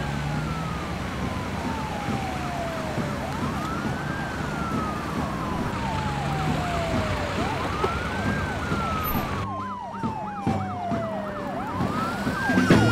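Motorcade sirens: a slow wail rising and falling about every four seconds, with a faster warbling siren over it, from a convoy of SUVs driving past.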